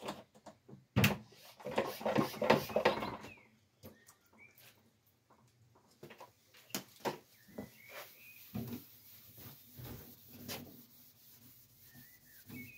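A cotton cloth rubbing cutting paste by hand over a painted car panel. A burst of fast scrubbing strokes starts about a second in and lasts about two seconds, then slower, intermittent rubs follow. A bird chirps briefly a few times.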